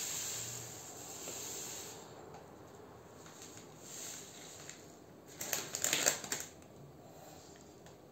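Table salt poured from a plastic bag into a small glass bowl, a hiss of falling grains for about two seconds, then a shorter trickle as more salt is added by hand. About five and a half seconds in comes a second of crackling rustle, the loudest sound here, as the salt bag is handled.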